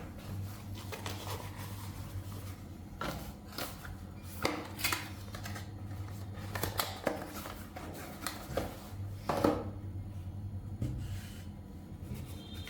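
Objects being handled at close range: irregular clicks, rustles and light knocks, the sharpest about nine and a half seconds in, over a steady low hum.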